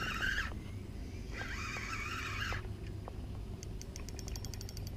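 Spinning reel's drag giving line in two buzzing bursts of about a second each while a fish pulls against the bent rod, then a brief run of quick clicks near the end.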